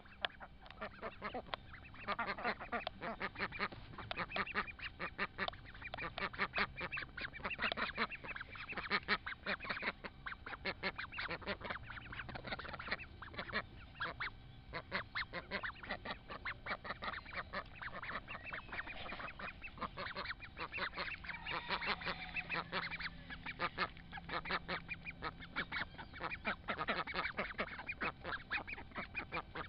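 Young ducks calling at close range over a fast, continuous patter of small clicks from their bills nibbling at the grass and at the trousers and shoelaces of the person filming.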